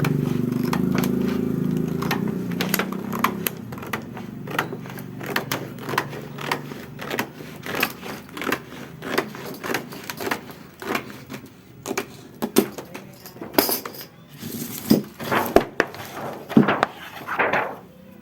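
A low hum that fades out in the first few seconds, then a quick, irregular run of sharp clicks and clatters of small parts and tools being handled during repair work on an electric fan motor.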